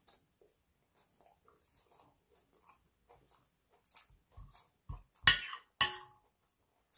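Chewing of a mouthful of salad with faint small mouth clicks, then a knife and fork working on a plate, cutting chicken. Two loud clinks of the cutlery on the plate come a little after five seconds in, the second leaving a short ring.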